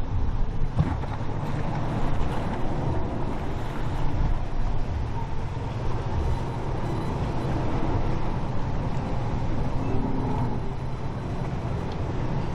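Sunseeker motor yacht's diesel engines running in a steady low drone as it cruises past at slow speed, with a hiss of water along the hull.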